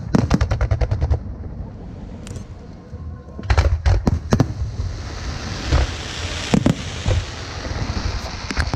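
Fireworks going off: a quick run of sharp bangs in the first second, then more loud bangs from about three and a half seconds in, followed by a crackling hiss as the bursts fade.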